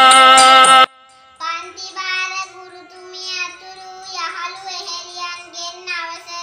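Electronic keyboard music that stops abruptly about a second in, followed by a young girl's voice singing in held, drawn-out phrases.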